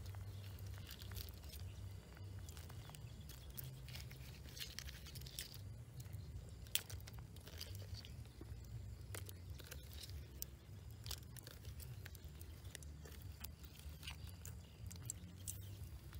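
Wood fire crackling under a simmering pot of soup, with irregular sharp crackles over a low steady rumble and one louder crack about seven seconds in. Small fish are dropped into the soup partway through.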